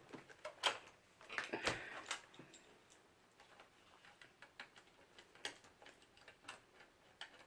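Scattered light clicks and ticks of a screwdriver working the last hinge screws out of a Toshiba Satellite laptop and the plastic parts being handled, with a louder cluster of clicks about a second and a half in.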